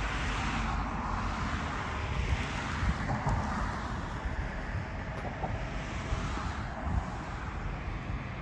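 Wind buffeting the microphone over a steady distant noise of the city that swells and fades a couple of times.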